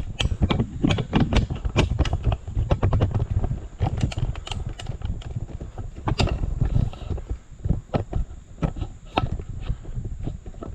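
Irregular clicks, knocks and rattles of hands working a door-latch linkage inside a pickup truck's door shell, metal parts tapping and scraping.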